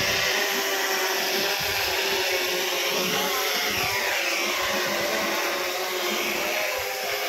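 White camera quadcopter drone flying low overhead, its propellers giving a steady buzzing whine, with a brief falling sweep in pitch about three to four seconds in as it manoeuvres.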